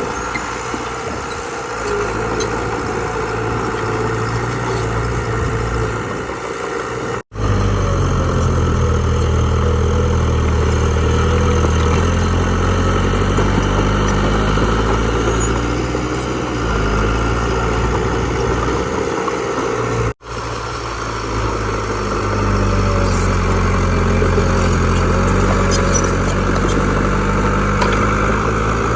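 Heavy earthmoving machinery's diesel engine running steadily, its load rising and falling, with the sound cutting out abruptly twice for an instant.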